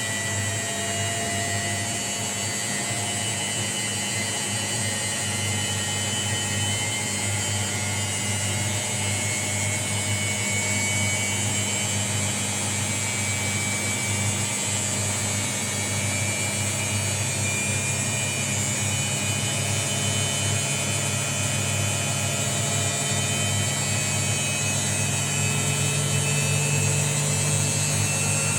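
Washing machine running: a steady motor hum whose low tone grows stronger in the last third.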